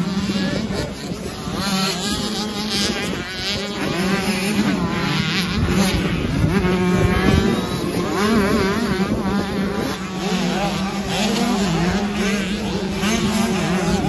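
Several youth motocross bikes racing by, their engines revving up and down and overlapping one another, over a steady low hum.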